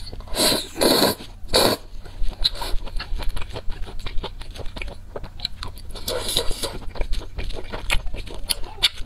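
Close-miked slurping of spicy instant noodles: three quick loud slurps in the first two seconds, then wet chewing with many small clicks and smacks.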